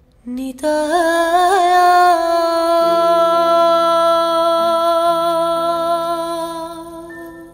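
A singing voice sweeps up into one long held note with a slight waver near the start, over soft low accompanying notes that enter about three seconds in. The note fades away near the end.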